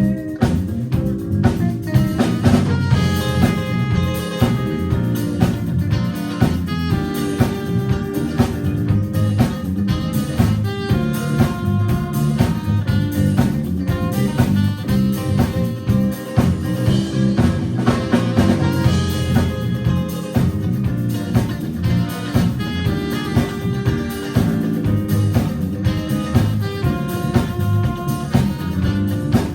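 Small jazz group playing an instrumental tune live, with drums keeping a steady beat under a melody line.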